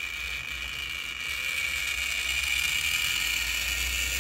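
Roundhouse MDC two-truck Shay HO-scale model locomotive running along the track on DC power, its motor and gear drive whirring with a steady high whine over a low hum, a little noisy. The sound grows louder from about halfway through.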